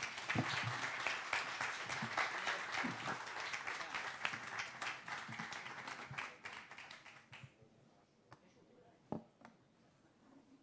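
Audience applauding. The clapping thins out and dies away about seven seconds in, followed by a few isolated clicks and knocks.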